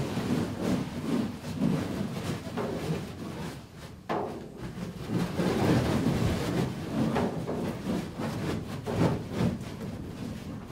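Many feet walking and shuffling on hollow wooden floorboards: a rumbling run of irregular thuds and knocks, which eases briefly about four seconds in.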